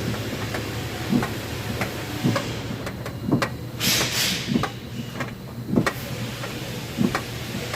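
A car's rear door knocking and rattling at irregular intervals over a steady low rumble, an abnormal noise from the door. A brief hiss comes about four seconds in.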